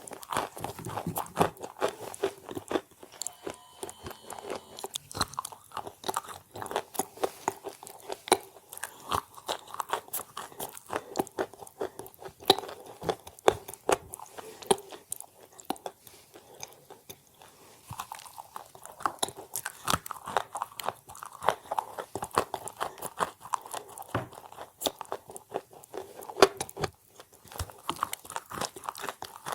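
A person biting and chewing chalk, with many crisp crunches coming quickly and irregularly.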